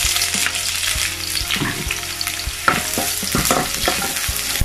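Sliced white onion rings sizzling as they fry in a little hot oil in a non-stick pan, with scattered clicks and scrapes of a wooden spatula stirring them.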